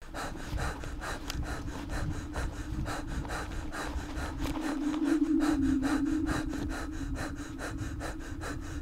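A person panting hard while running through snow, breaths and crunching footsteps in a quick rhythm of about four a second, over a steady low drone that swells around the middle.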